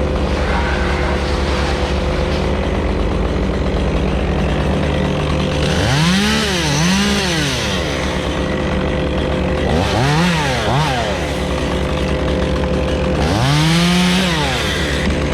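Stihl chainsaw revved in short throttle bursts, its pitch rising and falling: two quick revs, then two more, then one longer rev near the end. A steady engine drone runs underneath.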